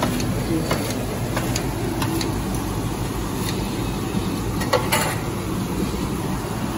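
Kitchen scissors snipping through crumb-coated fried balls in a steel scoop: a few light, crisp clicks, the sharpest about five seconds in. Under them runs a steady, loud hum and hiss of kitchen background noise.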